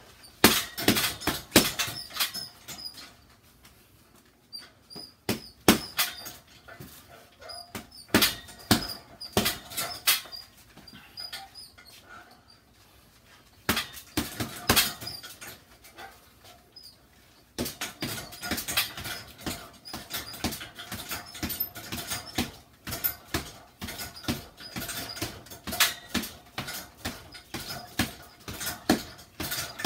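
Boxing gloves striking a hanging punching bag in quick flurries of punches, with short pauses, then a near-continuous run of punches from a little past halfway.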